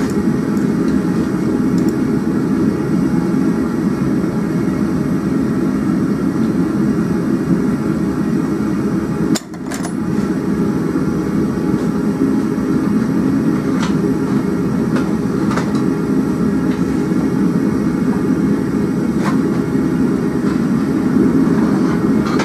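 Gas forge burner running with a steady, deep rushing noise. It drops out for a moment about nine and a half seconds in, and a few faint ticks sound over it.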